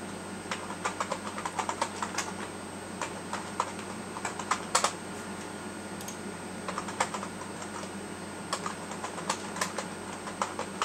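Computer keyboard typing: irregular runs of keystrokes as shell commands are typed, over a steady background hum.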